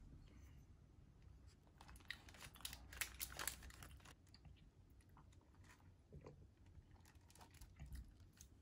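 Faint crinkling and crackling of a paper sandwich box and wrapper being handled while an egg sandwich is eaten, with quiet chewing. The crackles come in two clusters: one in the middle and one near the end.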